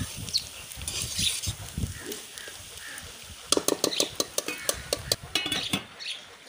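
Slotted steel spatula stirring and scraping fried bitter gourd and onions in a steel pot, over a light sizzle. About halfway through comes a quick run of sharp metal clicks and clinks as the spatula strikes the pot, and the steel lid is set on the pot near the end.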